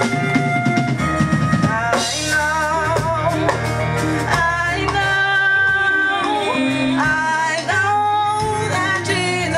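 Praise and worship music: a drum kit and bass line, with voices singing wavering, held notes over them from about two seconds in.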